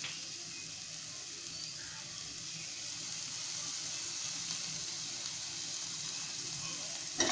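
Bread upma sizzling steadily in a frying pan while lemon juice is squeezed into it from a plastic hand squeezer.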